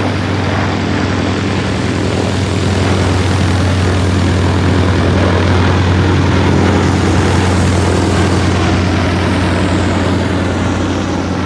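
Bristol Blenheim Mk I's twin Bristol Mercury nine-cylinder radial engines running at display power as the aircraft makes a pass, loudest about midway and dropping in pitch as it moves away near the end.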